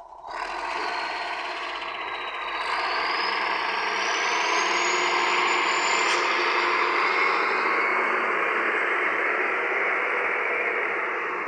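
Heavy earthmoving machine's diesel engine running steadily under load, with a high whine that climbs in pitch for a few seconds from about two seconds in.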